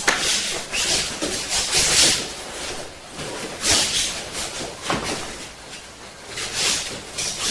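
Karate practitioners working through a two-person kata: irregular short hissing swishes of movement, several bursts spaced roughly a second apart.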